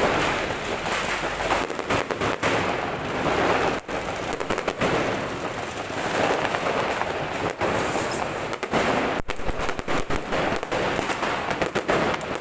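New Year fireworks and firecrackers going off continuously: dense crackling with many sharp bangs overlapping throughout.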